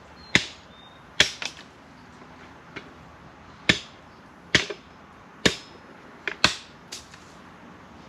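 A bladed hand tool chopping into wood or brush: about eight sharp strikes, roughly one a second, several with a quick second hit right after.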